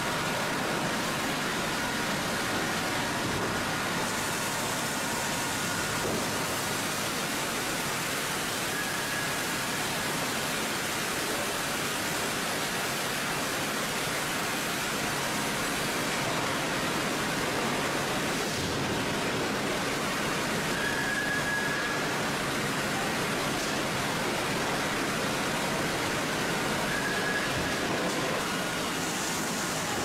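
Sawmill conveyor and sawing machinery running: a steady, even din with a few faint, brief high squeaks.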